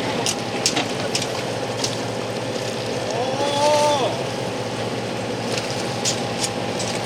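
A fishing boat's engine running steadily, with a few sharp clicks over it.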